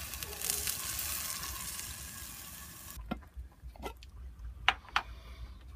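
Thin pancake batter sizzling in a covered frying pan, a steady hiss that stops abruptly about three seconds in. A few light clicks and clinks follow as a glass jar is opened by its screw lid.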